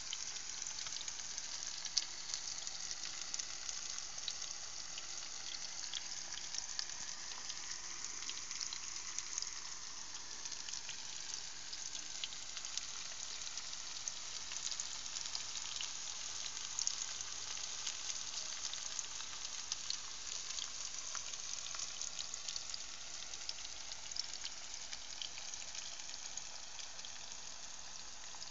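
Sliced mushrooms frying in oil in a nonstick frying pan: a steady sizzle peppered with many small crackles.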